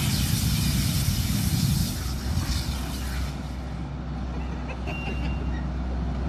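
Tracked skid steer's diesel engine running steadily as it pushes dirt, with a loud rushing noise over it for the first two seconds that then drops away.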